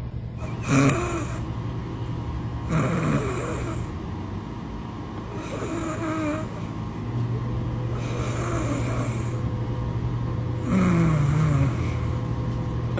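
A dog snoring in its sleep, about five snores roughly two and a half seconds apart, over a steady low hum.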